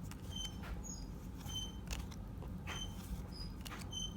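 Faint soft clicks and rustles of Pokémon trading cards being handled and slid one behind another, about one a second, over a low hum, with a few brief high squeaks.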